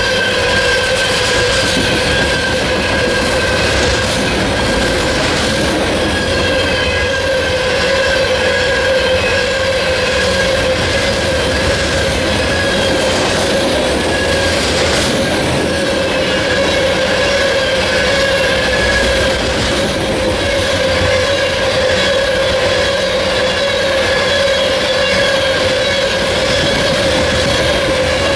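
CSX coal hopper cars rolling past with a steady, wavering high-pitched wheel squeal over the continuous rumble and clatter of wheels on rail.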